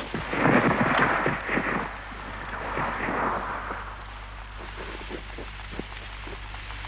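Rain and wind: a rushing gust swells over the first two seconds and again briefly near three seconds, then settles to a steady hiss with a few scattered drop-like ticks.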